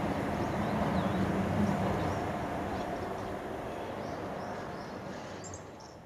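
Distant KTR700-series diesel railcar running toward the station, a low steady engine drone, with small birds chirping faintly over it. The sound fades down near the end.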